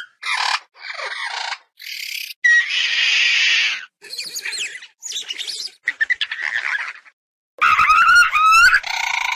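A series of short designed Compsognathus creature sound effects, one after another with brief silent gaps: high chirps and squeaks, a longer hiss about three seconds in, and quick chirping trills near the end.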